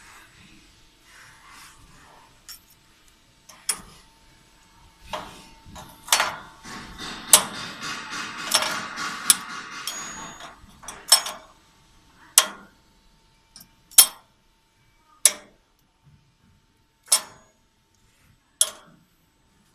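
Sharp metallic knocks and clinks from cut carbon-steel pieces being struck or handled. A denser patch of scraping and clattering comes in the middle, then single knocks follow about every second and a half.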